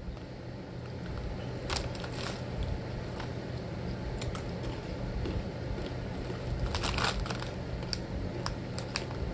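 A snack bag crinkling and barbecue tortilla chips being crunched, heard as scattered sharp crackles with the densest cluster about seven seconds in, over a steady low hum.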